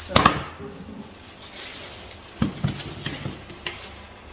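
A stainless steel electric kettle being handled as it comes out of its packaging: a sharp clatter just after the start, then a few light knocks and rustles.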